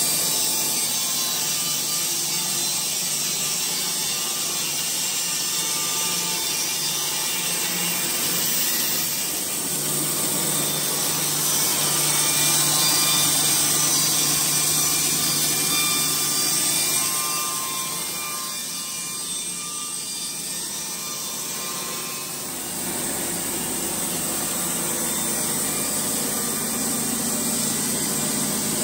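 Wood-Mizer LT70 Wide bandsaw mill running its band blade steadily through a dry, beetle-killed spruce log. The sound swells about ten seconds in and eases off around twenty seconds.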